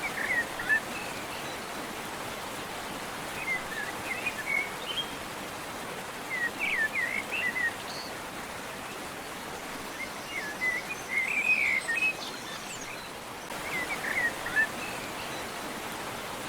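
A songbird singing short, repeated chirping phrases every few seconds over a steady outdoor background hiss.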